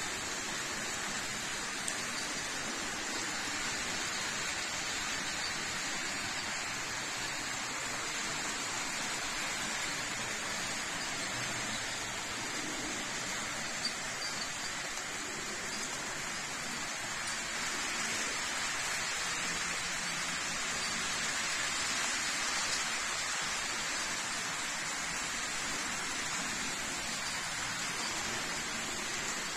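Model trains running on a layout: a steady hiss of small wheels rolling on the rails, which swells slightly about two-thirds of the way through.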